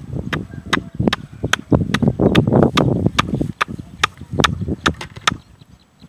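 Small hatchet striking a wooden stick again and again, a steady run of sharp wooden knocks about two or three a second that stops about five seconds in, with a low rumble around the middle.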